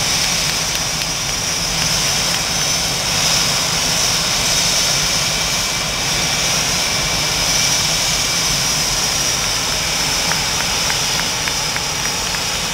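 Jet engines of several F/A-18 Hornets running on the ground, a steady loud rush with a high whine over it.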